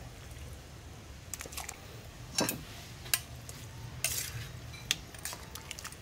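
Raw chicken pieces handled in a stainless steel mesh colander and tipped into a pot of soup: scattered clicks and knocks of metal, with a louder knock about two and a half seconds in and a short rush of noise about four seconds in.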